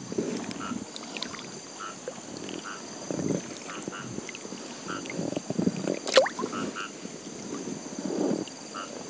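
Soft, irregular sloshing and splashing of river water as a gill net is worked from a small boat, over a steady high buzz of insects and frogs calling in short repeated chirps. A single falling whistle-like call sounds about six seconds in.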